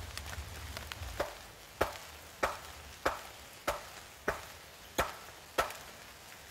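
A wooden stake being driven into the ground with a wooden club: eight solid knocks of wood on wood at an even pace, about one every 0.6 seconds, starting about a second in.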